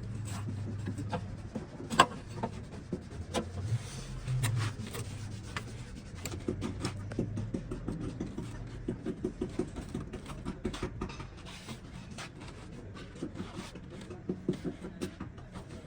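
Scattered metallic clicks and knocks of car body repair work, with one sharp loud knock about two seconds in and a steady low hum through the first half.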